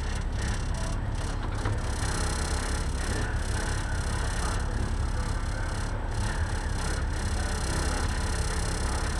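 Locost race car engines running steadily at low speed, heard from one car's open cockpit, with no revving.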